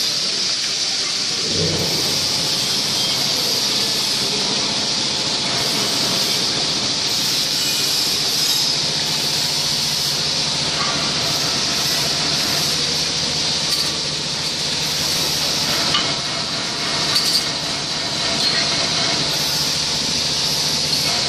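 Shrink-wrapping machine running: a steady hiss and whir, with a few faint clicks in the second half.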